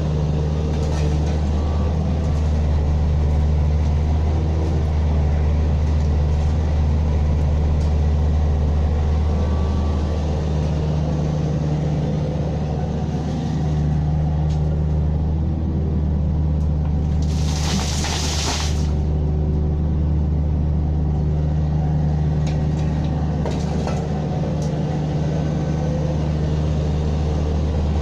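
Diesel engine of an earthmoving machine running steadily with a deep, even hum, easing slightly for a few seconds midway. A loud hiss of about a second breaks in about two-thirds of the way through.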